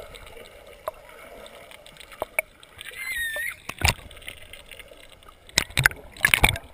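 Pool water heard from below the surface: muffled clicks and bubbling as swimmers kick close by, with a brief wavering squeal about three seconds in and a cluster of louder bubbly splashes near the end.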